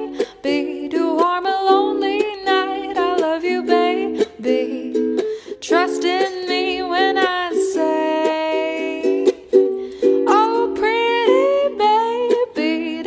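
Background music: a ukulele strumming chords under a melody that bends and wavers like a voice, holding a long note with vibrato about halfway through.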